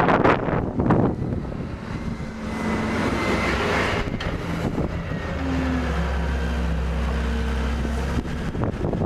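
Snowstorm wind gusting across the microphone, easing after the first couple of seconds, over a motor vehicle's steady low engine hum that grows stronger for a few seconds in the middle.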